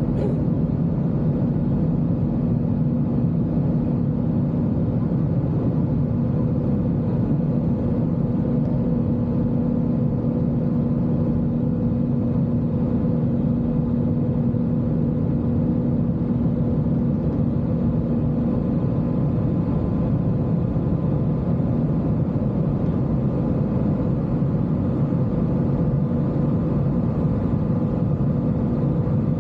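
Steady drone of an airliner in flight heard from inside the cabin: a constant rumble with a few steady hums.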